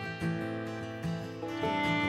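Instrumental background music led by plucked string instruments, with quick changing notes.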